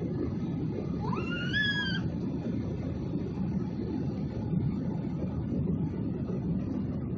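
Steady low rumble of jet engines and airflow inside the cabin of an Airbus A320neo climbing after takeoff. About a second in, a short high-pitched rising squeal cuts through for about a second.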